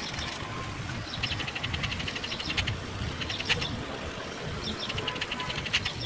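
Short, rapid trilled calls repeated every second or two, like a bird singing, over a steady low rumble.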